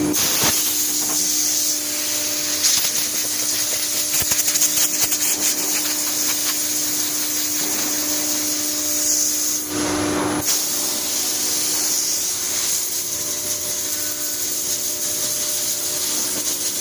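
ATC CNC wood router running a cutting job: the spindle gives a steady whine over a loud hiss of cutting and air, with a run of fine rapid clicks a few seconds in and a brief louder patch about halfway through.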